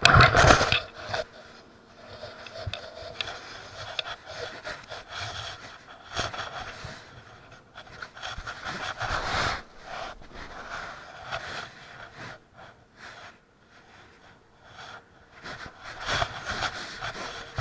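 A person breathing hard close to the microphone, in uneven swells, with occasional short knocks.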